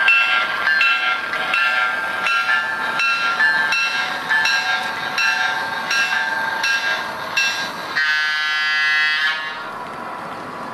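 A bell ringing about twice a second over the sound of an O-gauge model freight train rolling on three-rail track, then a horn blast of just over a second from the locomotives' onboard sound system near the end, after which only the train rolling is left.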